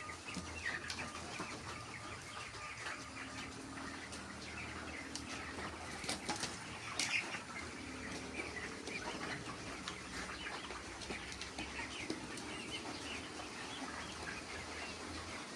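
A flock of broiler chickens: many overlapping peeps and clucks over a steady low hum, with a few sharp flaps or clicks about six to seven seconds in.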